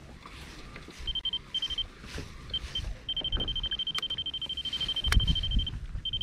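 An electronic alarm beeping at a high pitch, first in short bursts, then in a long rapid run of pulses, then in short bursts again. Two sharp clicks come in the middle, and low knocking and rumbling near the end as a small fish is lifted from the water onto the paddleboard.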